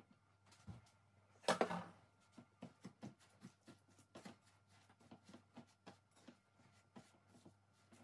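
Silicone spatula stirring and pressing crushed digestive biscuits and melted butter in a glass bowl: a run of soft clicks and scrapes against the glass, with one louder scrape about a second and a half in.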